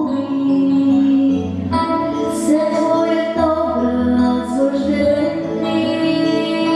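A solo female voice singing a song in long held notes over instrumental accompaniment.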